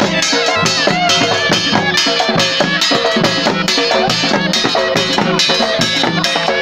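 Balochi lewa dance music: rope-laced dhol drums beating a fast, even rhythm under a wavering, reedy surna melody.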